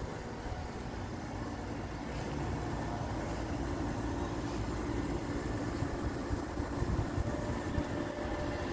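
Outdoor air-conditioner condenser unit running: a steady mechanical hum over a low rumble, growing louder from about two seconds in.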